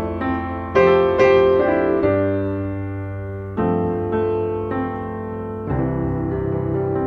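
Background piano music, with chords and notes changing every second or so.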